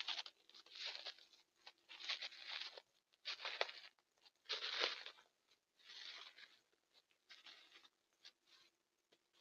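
A deer walking through dry leaf litter: a crunching, crackly rustle about once a second, some steps louder than others. A faint steady hum runs underneath.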